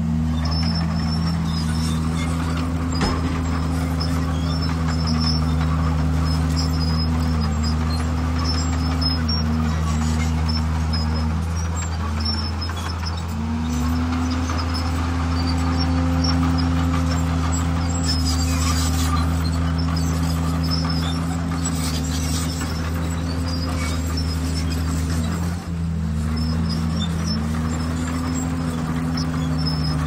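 Heavy diesel engine of earthmoving machinery running steadily. Its pitch sags and recovers every few seconds, as under changing load.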